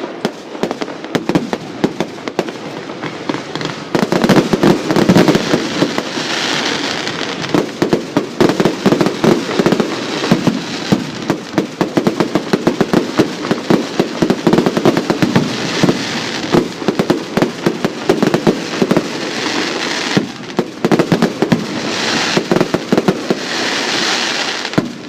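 Fireworks display: a dense, continuous barrage of exploding shells, many bangs a second, with several bursts of high crackling hiss from the stars along the way.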